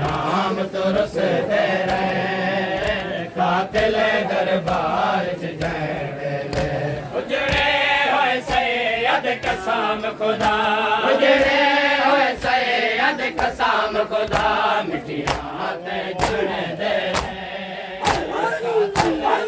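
A group of men chanting a noha, a Shia mourning lament, in unison with long wavering sung lines. Sharp slaps of hands striking bare chests (matam) keep a regular beat, clearest in the second half.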